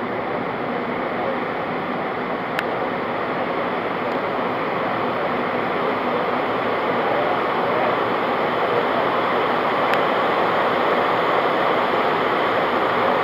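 Steady roar of engine and rushing-air noise inside an airliner cabin, creeping slightly louder over the stretch, with a faint click about two and a half seconds in.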